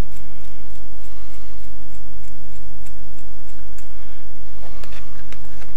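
Faint regular ticking, about two a second, over a steady low hum, with light rustling near the end.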